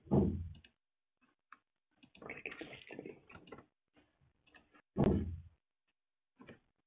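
Two dull thumps about five seconds apart, each dying away within half a second, with scattered faint clicks and a short stretch of muffled clatter between them.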